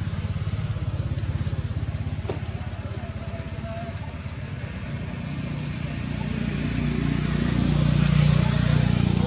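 Low engine rumble with a fast, even pulse, growing louder over the last few seconds.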